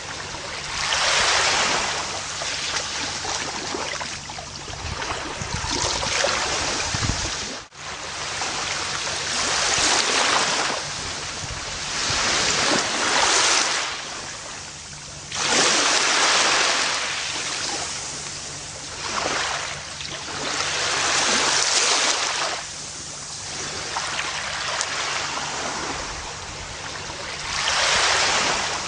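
Gentle ocean waves washing onto a beach, the surf swelling and fading every few seconds. There is a momentary dropout about eight seconds in.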